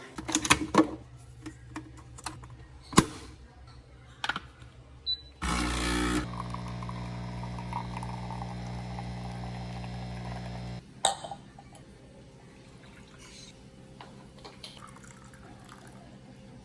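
Capsule coffee machine: clicks and knocks of handling, a short beep, then the pump starts and buzzes steadily for about five seconds as coffee pours, stopping before a final click.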